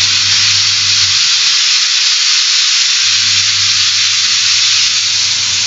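Loud, steady hiss of escaping steam that cuts off suddenly near the end.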